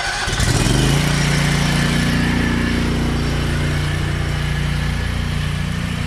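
Gasoline engine of a pressure washer just started, speeding up over the first second and then running at a steady speed.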